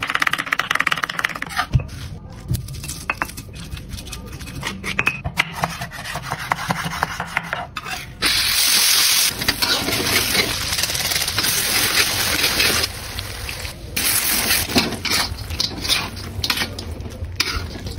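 A run of kitchen food-preparation sounds: a knife tapping through red chillies on a wooden cutting board, chilli being crushed and scraped on a stone mortar, and a metal spatula stirring tuna and chilli paste in a steel wok. From about eight seconds in there is a long stretch of steady hissing.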